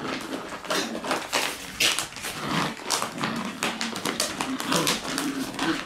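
A pack of Shiba Inu puppies growling as they tussle over a bag, with the bag rustling and crinkling and claws scrabbling throughout.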